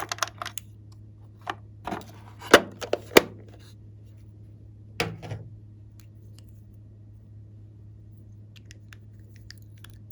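Glossy slime worked by hand: a run of sticky clicks and crackling pops, the loudest two sharp pops about two and a half and three seconds in, a softer squishy crackle about five seconds in, then only faint scattered ticks.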